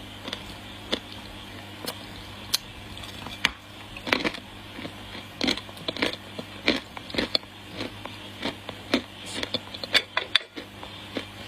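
Dry clay being bitten and chewed, with irregular sharp crunches and crackles that come thicker in the middle, over a steady low hum.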